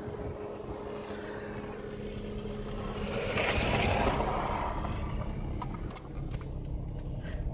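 Car running, heard from inside the cabin: a steady engine hum and road rumble, with a louder rushing swell about three to four seconds in.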